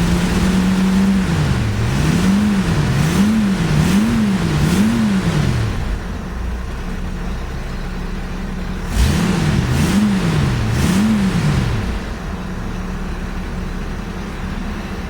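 AMC Jeep engine running just after a carburetor cleaning, the throttle blipped in quick repeated revs: five rises and falls in engine speed starting about a second in, a steady stretch, then three more about nine seconds in.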